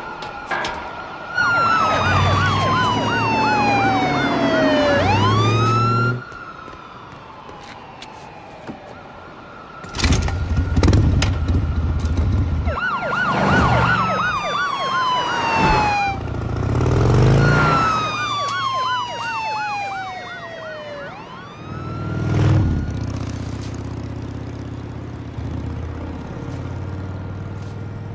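Siren-like wailing tones that fall steadily in pitch over a few seconds and sweep back up, three times, with a warbling tone over them. Loud blasts and rumbles come in between, typical of explosions in an action-film soundtrack.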